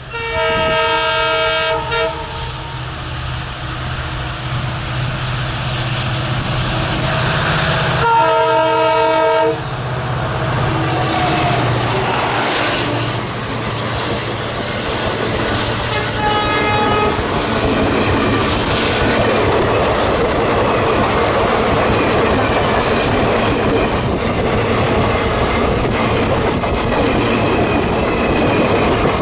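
Multi-tone air horn of an Indian Railways WAG-7 electric locomotive sounding in long blasts: one at the start, a louder one about eight seconds in and a fainter one around sixteen seconds, over a low diesel locomotive engine hum. From about twelve seconds a passing train's wheels rumble and clatter steadily over the rail joints.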